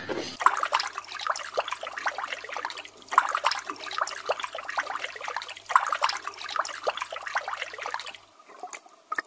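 Water bubbling and trickling with a dense crackle of sharp clicks, stopping abruptly about a second before the end.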